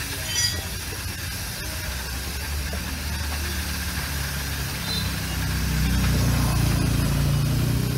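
Aerosol C2 chain lube hissing out of the can onto a motorcycle's drive chain, over a motorcycle engine running at a steady idle whose low hum grows louder in the second half.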